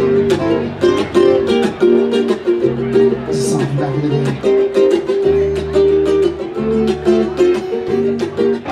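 Live Hawaiian-style music: a ukulele strummed steadily over a bass line that changes note every second or so.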